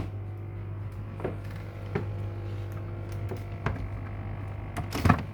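Items in a fridge being handled and moved, giving a few light knocks and taps and a louder knock near the end, over a steady low hum.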